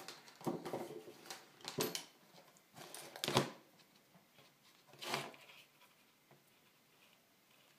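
Handling noises as a handheld digital multimeter is set down on the workbench beside a battery pack and its test leads are picked up: a few short knocks and rustles, the sharpest about three seconds in and another about five seconds in.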